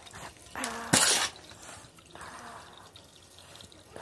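Gritty potting substrate poured into a plant pot and worked in by hand. A short, loud rush of falling grit about a second in, a softer trickle a second later, and light rustling between.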